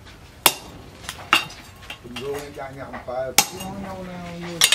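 Hand hammer blows on a large steel knife blade made from a chainsaw bar, resting on a metal anvil post: four sharp metallic strikes, irregularly spaced.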